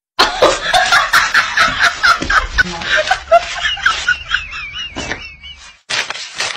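A hen clucking in a fast run of short calls, with a wavering, drawn-out note about two-thirds of the way through. Paper banknotes are being flicked as they are counted.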